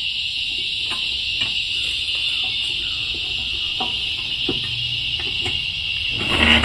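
A steady high-pitched drone, with scattered light clicks and knocks of mower parts being handled during reassembly, and a louder knock near the end.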